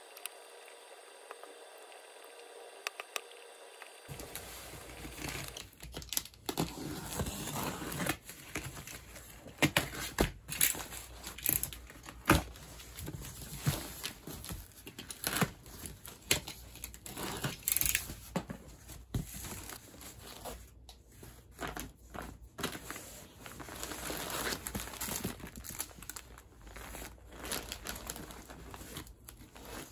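A cardboard shipping box being opened by hand and the clothes inside handled, starting about four seconds in: crinkling plastic garment bags and rustling paper and cardboard, with scattered sharp taps and knocks.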